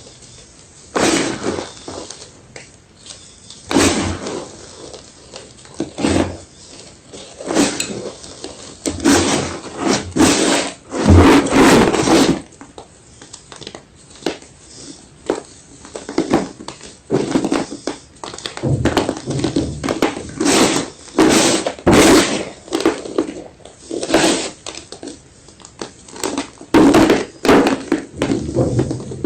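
White gym chalk being crunched: a run of irregular crisp crunches, roughly one every one to two seconds, some loud and some softer.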